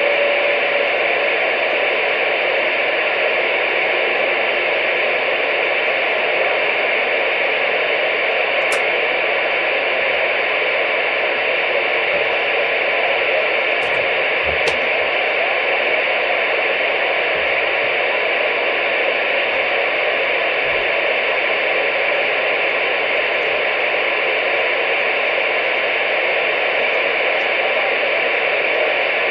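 CB radio receiver hiss: steady radio static over the speaker with nobody transmitting, a faint steady tone dying away about a second in and two brief clicks in the middle.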